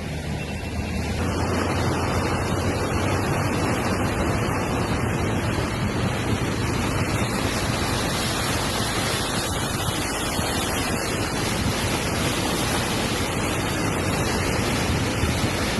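Heavy rain falling, a steady rushing hiss with no breaks.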